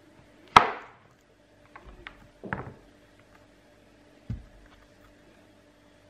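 A knife cutting through a thick block of handmade soap: a sharp crack as the blade breaks through about half a second in, then a shorter crunching cut about two seconds later. A little over four seconds in, a dull thud as the cut slab of soap is set down on the table.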